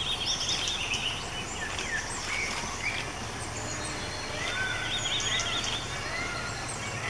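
Forest birds calling over a steady low hum: a rapid trilling call near the start that comes again about five seconds in, with scattered short chirps between.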